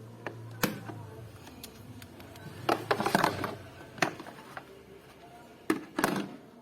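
A handful of sharp clicks and knocks, with a quick cluster of them about three seconds in, like hard parts being handled.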